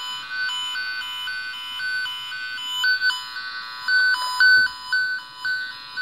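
Tone-tracer probe's speaker sounding the tone generator's warbling signal, a tone stepping rapidly back and forth between a higher and a lower pitch. From about four seconds in it comes in louder bursts as the probe is passed over the patch-panel wires, louder at the wire that carries the signal.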